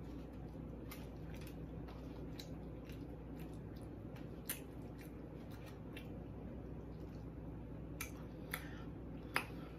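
Close-up eating sounds: soft wet chewing and mouth clicks with a few sharper taps, the loudest near the end, over a steady low hum.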